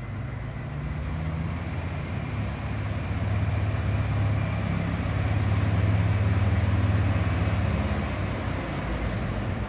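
Diesel multiple unit pulling into a station: a low, steady engine drone with wheel and rail noise, growing louder as the train approaches and easing off near the end as it slows.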